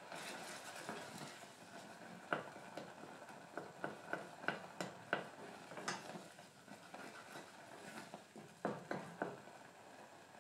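Wooden spatula stirring strawberry jam in a stainless steel saucepan. Soft scraping is punctuated by a string of light, irregular knocks against the pan from about two seconds in until about nine seconds.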